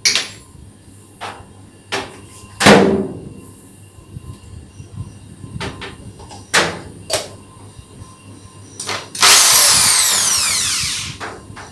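Handling knocks and clicks, the loudest a sharp knock about three seconds in, then a corded electric drill runs for about two seconds near the end, its whine falling steadily in pitch as it slows and fades.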